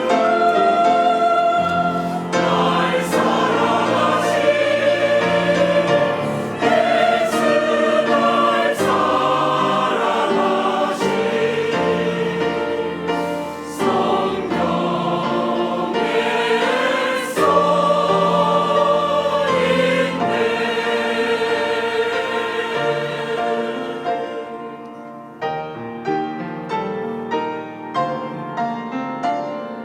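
Mixed church choir singing a hymn in full harmony with accompaniment. About 25 seconds in the choir stops and a piano plays on alone.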